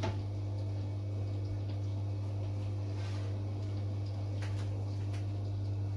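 A steady low hum with a few faint clicks and knocks, likely a tray of muffins being taken out of the oven.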